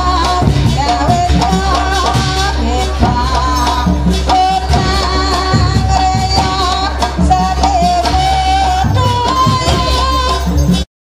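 Jaranan folk music: a wavering lead melody over drums and clattering percussion, cutting off abruptly just before the end.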